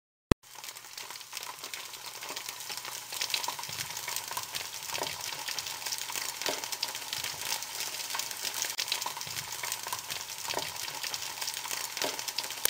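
Food frying in hot oil: a steady sizzle with scattered crackles and pops, after a sharp click at the very start.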